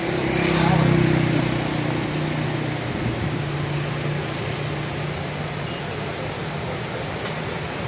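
Suzuki Cultus's small petrol engine running, revved briefly about a second in and then settling to a steady run, kept going on petrol poured straight into its carburettor because the fuel pump is not delivering. A single sharp click near the end.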